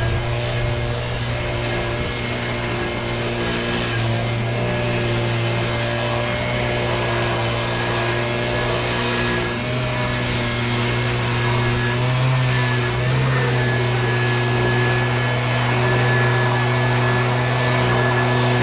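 Handheld engine-powered leaf blower running at high throttle: a steady engine drone over a rush of air. Its pitch steps up slightly about halfway through and wavers briefly a couple of seconds later.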